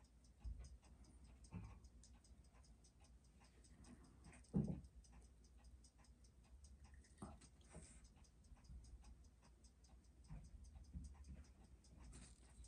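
Faint, fast, even ticking of a freshly serviced Seiko 6309 automatic watch movement beating at 21,600 beats per hour, about six ticks a second. A single soft thump sounds about four and a half seconds in.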